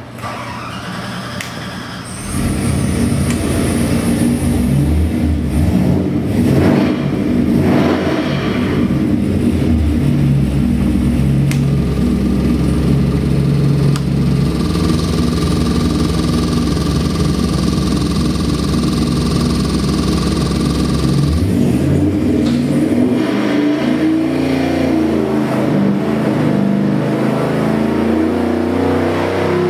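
Carbureted LS 327 cubic-inch V8 crate engine running on an engine dyno, idling steadily around 1000 rpm. About two-thirds of the way through it begins a load pull, its pitch climbing steadily as it sweeps up past 3000 rpm.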